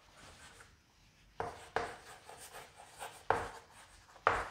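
Chalk writing on a chalkboard: several short, sharp chalk strokes and taps at uneven intervals, the strongest near the end.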